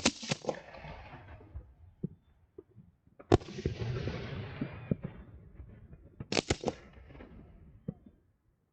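Fireworks going off: three sharp bangs about three seconds apart, each followed by a crackling hiss that fades over a couple of seconds.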